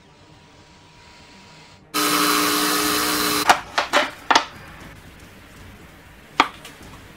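Handheld plunge router running at full speed for about a second and a half, then cutting off abruptly. A few sharp knocks follow right after, and one more near the end.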